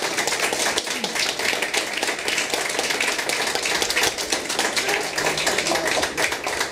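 A crowd applauding: many people clapping their hands steadily.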